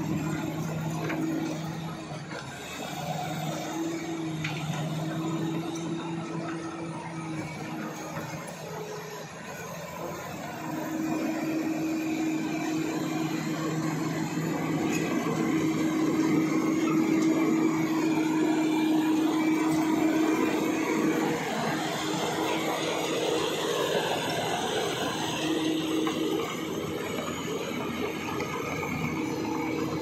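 Bulldozer's diesel engine running at work with a steady hum, getting louder about a third of the way in.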